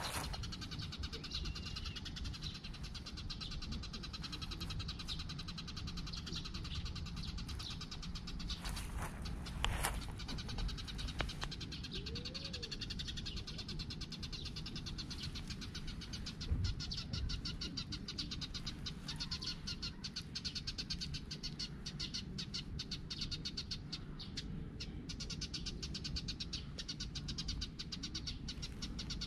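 Tabby cat purring steadily while being stroked, with a few brief knocks of handling close to the microphone.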